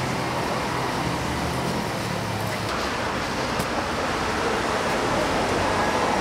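Steady street traffic noise, an even hum and hiss without breaks.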